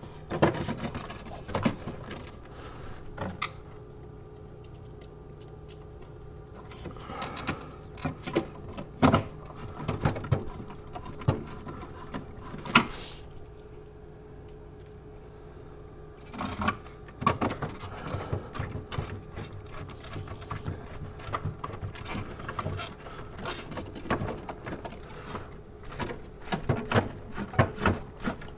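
Scattered plastic clicks, taps and knocks as hands handle and refit the plastic damper control cover parts inside a Jenn-Air refrigerator, over a steady low hum. The clicking pauses twice, at about four seconds in and again at about thirteen seconds in.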